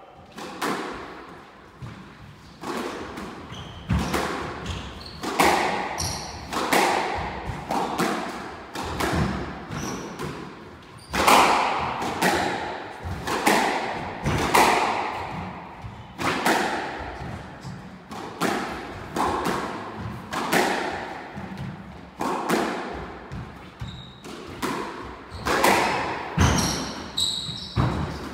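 A squash rally: the ball is struck by racquets and slaps off the court walls in sharp, echoing impacts, roughly one every second. A few short squeaks come near the end.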